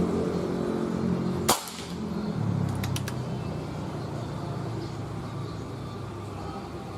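A single shot from a .177 air rifle about a second and a half in, a sharp crack over an engine humming steadily in the background. A few faint clicks follow about a second later.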